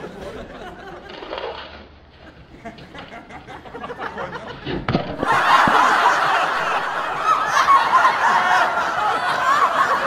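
A concrete ring dropped from a truck thuds onto the ground a little before five seconds in, and immediately a loud dubbed-in sitcom studio-audience laugh track starts and keeps going.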